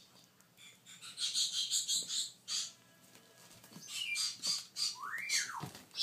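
African grey parrot chicks giving rapid, high-pitched begging calls in runs, starting about a second in. Near the end one call rises and then falls in pitch.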